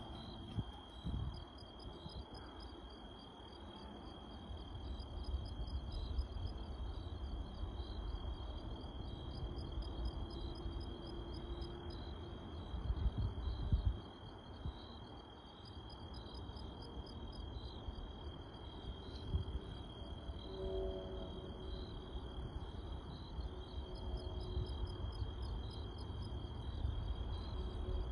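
Crickets singing at night: one steady, unbroken high trill, with another cricket chirping in a regular pulse of about two chirps a second. Low rumbling noise runs underneath and swells about halfway through.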